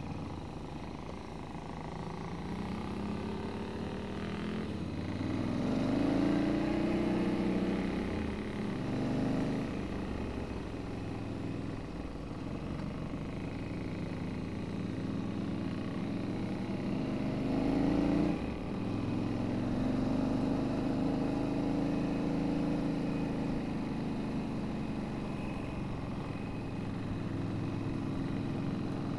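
Motorcycle engine running while riding on a gravel track, its revs rising and falling, with a sudden drop about eighteen seconds in.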